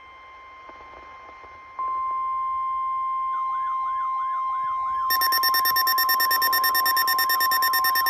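NOAA Weather Radio's steady 1050 Hz warning alarm tone, heralding a new alert. It grows louder about two seconds in; a warbling alarm joins about three seconds in and a rapid pulsing beep about five seconds in, from weather alert receivers set off by the tone.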